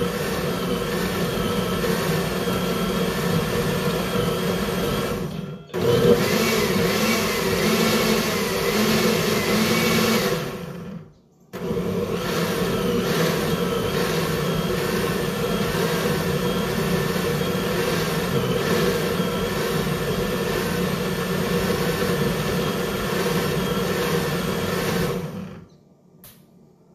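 Countertop blender running under load, blending chopped red onion, lemons and ginger with water. The motor stops briefly about five and a half seconds in, and again for a moment near eleven seconds. Each time it starts again, then cuts off shortly before the end.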